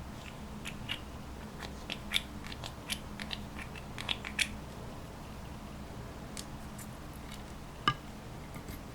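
Slime being worked by hand with irregular small crackles and sticky popping clicks, thick in the first half and sparse later, with one sharp click near the end. A steady low hum runs underneath.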